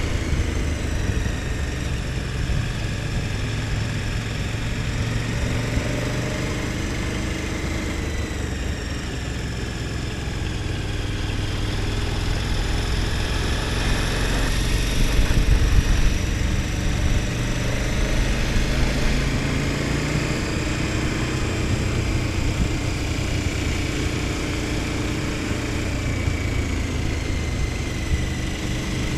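KTM 1290 Super Adventure S's V-twin engine running while the bike is ridden, its note rising and falling with the throttle over a low rumble, a little louder about halfway through.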